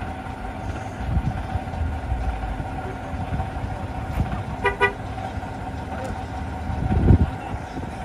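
Fire engine's motor running steadily to drive its water pump, with a constant mid-pitched whine over a low rumble. A short double horn toot comes about halfway through, and a low thump comes near the end.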